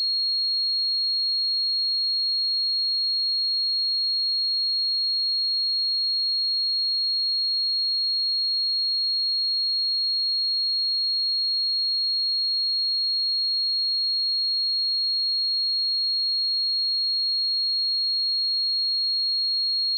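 A steady, unbroken 4283 Hz sine-wave test tone: one pure high-pitched note at constant loudness, used to check speakers or headphones.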